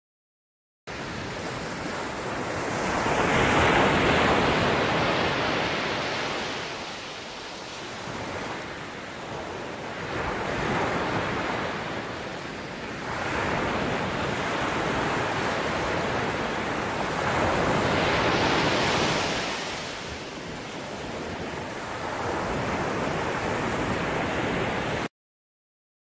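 Ocean surf: waves break and wash in as a steady rushing noise that swells louder about four times, every six or seven seconds. It starts abruptly about a second in and cuts off suddenly near the end.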